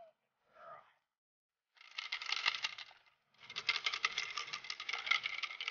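A dense, rapid rattling clatter in two runs, about a second long and then, after a short break, a longer one, preceded by a brief vocal sound at the start.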